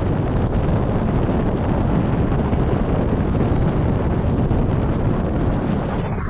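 Wind buffeting the microphone in flight: a loud, steady rush of low, rumbling noise, easing slightly at the very end.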